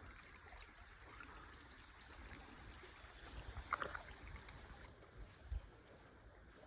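Faint creek ambience: soft running water, with a few light taps and knocks near the middle and one low knock later.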